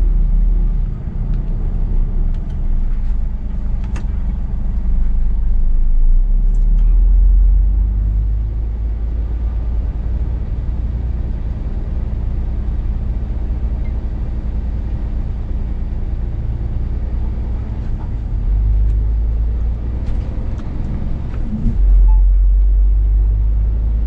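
Scania S500 truck's V8 diesel engine running under way, heard from inside the cab as a steady low drone that swells slightly a couple of times.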